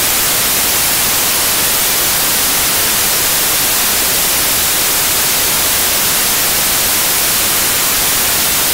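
Loud, steady hiss of television static, the sound of an untuned TV's snow, brighter in the treble. It stops abruptly at the very end.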